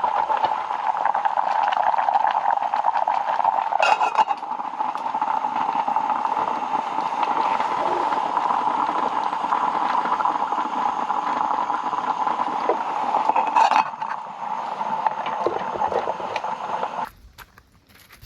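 Food cooking on a stove or grill, a steady sizzle with a couple of short clatters, cutting off suddenly near the end.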